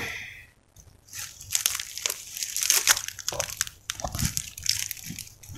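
Dry fallen oil-palm fronds crackling and rustling as they are handled and pushed aside, in a dense run of crisp crackles starting about a second in, with some water sloshing in the pool.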